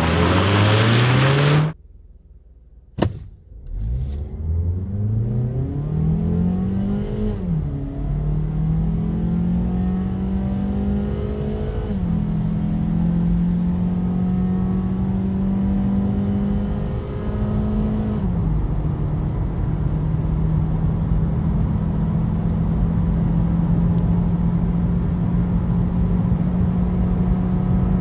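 Mazda CX-3's 2.0-litre, 146-hp four-cylinder engine at full throttle, heard from inside the cabin. The engine note climbs through the revs and drops back as the six-speed automatic upshifts, about 7, 12 and 18 seconds in, then pulls near 6,000 rpm in the top gear reached. It opens with a short, loud rising engine rev, a pause and a click.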